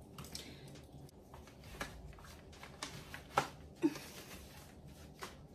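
Soft rustling of fabric with a handful of light clicks and taps as a zip-front waist trainer is wrapped around the waist and fastened.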